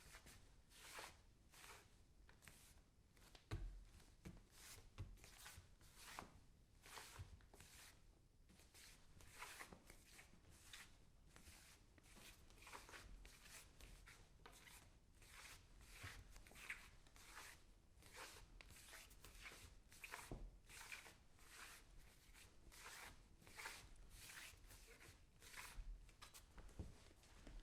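A long, irregular series of short, faint scratchy strokes, about one to two a second, with an occasional soft low thump.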